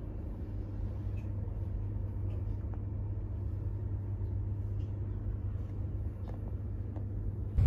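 Steady low rumble inside a Chinese bullet train's sleeper compartment, with a few faint light clicks.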